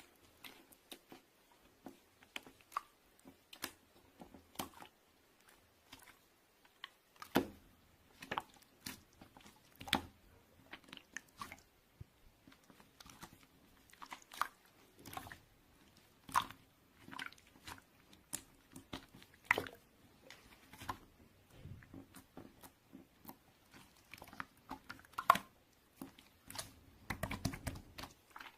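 Close, irregular crisp clicks and crunches, a few louder than the rest, scattered throughout.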